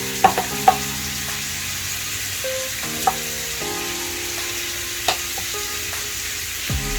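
Chicken pieces sizzling in oil on a hot griddle pan, a steady hiss, with a few light clicks of utensils.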